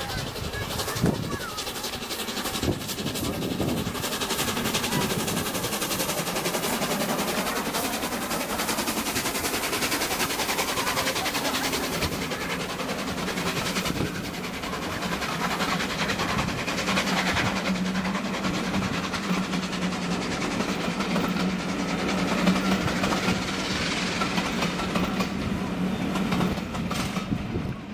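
Heritage passenger train on the Paignton & Dartmouth Steam Railway running past, its coaches giving a dense, continuous clatter of wheels on rails. A steady low hum joins in about halfway through and carries on to the end.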